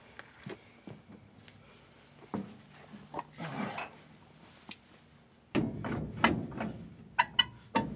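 Metal clunks, scrapes and clicks from a truck's rear drum brake as the shoes are adjusted with a long bar-type tool. The knocks are scattered, with a heavier run of clunks about two thirds of the way in and a quick cluster of sharp, ringing metallic clicks near the end.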